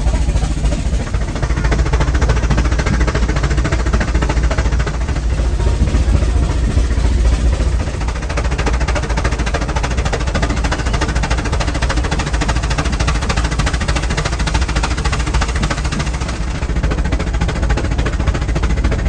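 Modern rack-railway steam locomotive pushing its carriages uphill: a steady, fast clattering chuff of the engine and rack drive over a heavy low rumble.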